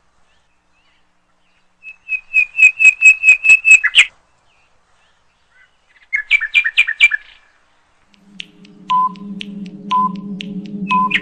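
Two quick runs of high bird chirps, the first of about nine chirps and the second shorter, used as a transition sound. Then, from near the end, a low steady drone with a short beep about once a second: the quiz's countdown timer ticking down.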